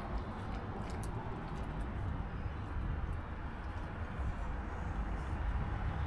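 Steady low outdoor rumble of wind and distant traffic, with a few faint clicks of someone biting into and chewing a burrito.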